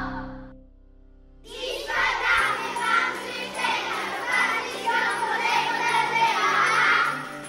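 The song ends about half a second in. After a short pause, a group of children call out and cheer together over light background music.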